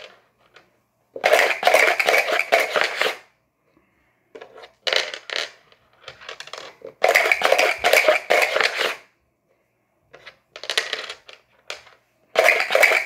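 Dice rattling inside a plastic dice cup as it is shaken, in bursts of one to three seconds with short pauses between.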